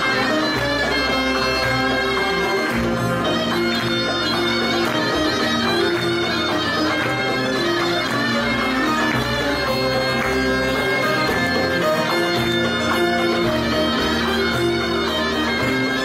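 A Turkish folk music ensemble, led by many bağlamas (long-necked lutes), plays continuously over a held low bass note that shifts every few seconds.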